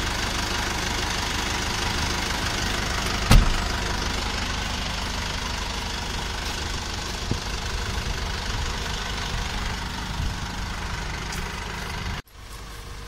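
Isuzu truck's diesel engine idling steadily, with one sharp knock about three seconds in. The sound drops off abruptly near the end.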